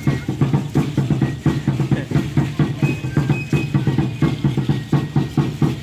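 Mexica (Aztec) dance drumming: a drum struck in a fast, steady beat, with the dancers' seed-pod ankle rattles shaking along.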